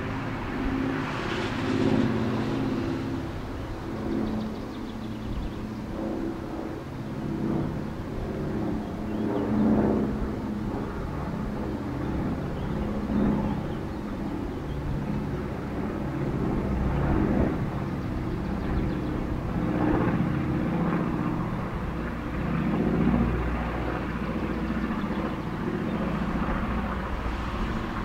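Engine noise from passing motor vehicles, rising and falling in several swells over a steady background hum.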